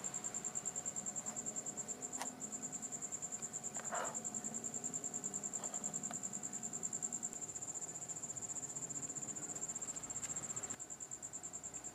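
An insect trilling steadily in a high, rapidly pulsing tone. There is a faint click about two seconds in and a short rustle about four seconds in.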